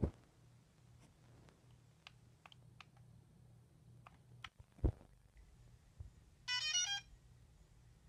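A brief electronic tone sequence of several quickly stepping pitches, lasting about half a second, about six and a half seconds in, over a faint steady low hum with scattered faint clicks and a thud near five seconds.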